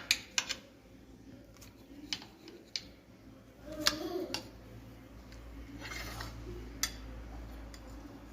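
Scattered sharp clicks and taps of kitchen utensils and dishes being handled, with a busier stretch of handling noise about four seconds in.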